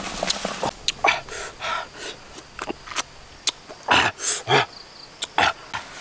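Water splashing and leaves scraping inside a clay pot in irregular short bursts, with sharp crackles from a wood fire.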